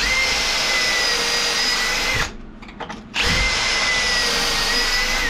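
Electric drill running at a steady speed in two runs of about two seconds each, with a short pause between, a high steady whine over the motor noise.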